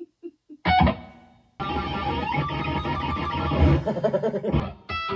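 Electric guitar playing. A few short picked notes lead into a loud chord struck about a second in and left to ring out. From about a second and a half in comes dense, continuous playing, which breaks off briefly near the end before more notes follow.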